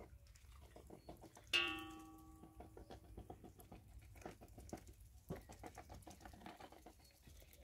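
Geese dabbling and pecking in a feeding trough: a quiet, irregular patter of small wet clicks. About a second and a half in, a single sharp clang rings out and fades over a second or so.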